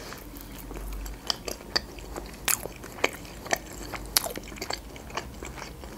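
Chewing a bite of fried Georgian khinkali dumpling, with sharp crisp clicks about twice a second.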